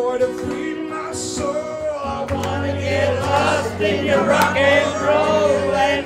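A man singing live into a microphone with backing music. A steady low bass line comes in about two seconds in.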